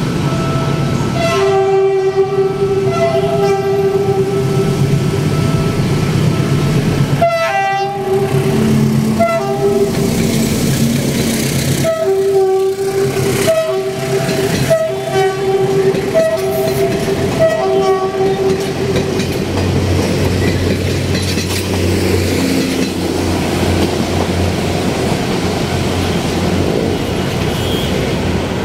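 Train horn blowing a series of short and longer blasts, a chord of steady tones, over the noise of the moving train. The horn stops about eighteen seconds in, leaving a low steady rumble.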